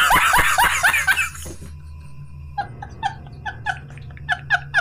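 A man laughing hysterically: loud, rapid peals of laughter, then after a brief pause a run of short, high squeaky laughs about four a second.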